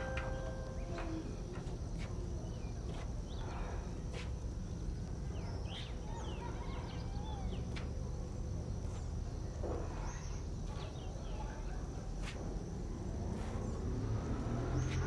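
Outdoor ambience: a steady high insect drone with scattered short bird chirps over a low steady rumble.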